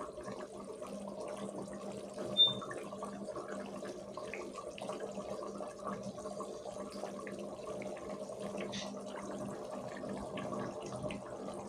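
Chicken curry in an aluminium pot being stirred with a spoon: a steady wet bubbling and sloshing with small scrapes and ticks over a faint steady hum. There is one brief high ping, the spoon striking the pot, about two seconds in.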